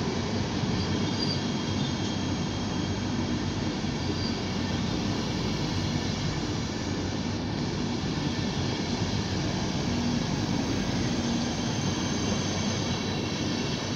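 PKP Intercity passenger coaches rolling past along a station platform: a steady rumble of wheels on rails.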